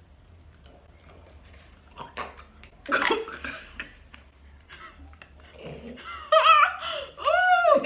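Two women laughing: short breathy bursts of laughter a couple of seconds in, then loud, high laughs that rise and fall near the end.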